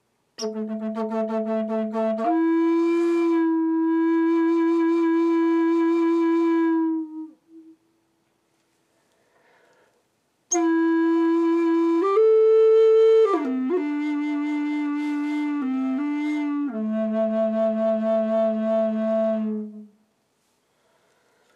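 Long end-blown wooden flute in A played slowly in two phrases with a pause between. The first starts on the low note with a pulsing vibrato and then rises to a long held note. The second climbs higher, steps back down, and settles on the low note, again with a pulsing vibrato.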